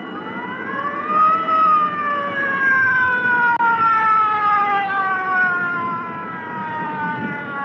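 Fire engine siren rising in pitch for about a second and a half, then slowly falling away.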